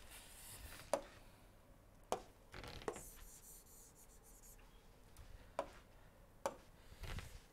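Faint taps and scratches of a stylus on a tablet screen, with about five short clicks spread over the few seconds.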